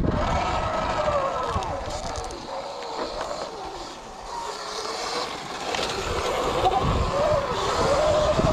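Small vehicle engine running with a wavering pitch as the machine moves around a track. It fades about halfway through and grows louder again near the end.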